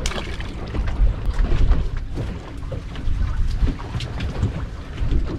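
Wind buffeting the microphone on an open boat in stormy weather, a strong uneven low rumble, with a few light knocks.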